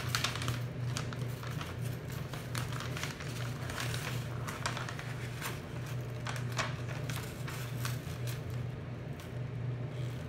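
Paper and pink metallic foil paper rustling and crinkling in short irregular bursts as they are handled and smoothed, over the steady low hum of a bathroom exhaust fan.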